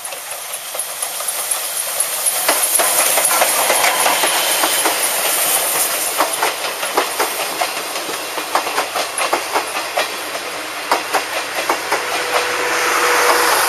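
Chichibu Railway's C58 steam locomotive and its passenger coaches passing close at speed: a hiss of steam as the engine goes by, then the wheels clacking over the rail joints in quick clusters as the coaches roll past.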